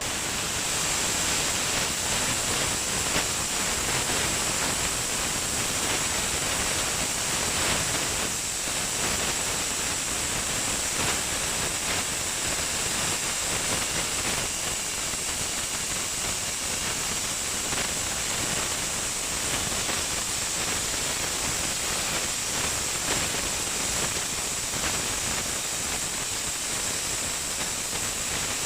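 Steady hiss of the cutting torch on a CNC pipe profile cutting machine as it cuts, with a thin high tone running over it.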